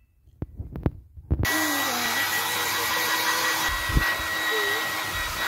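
A few knocks from handling, then about a second and a half in a hair dryer comes on abruptly and blows steadily, with a thin high whine from its motor.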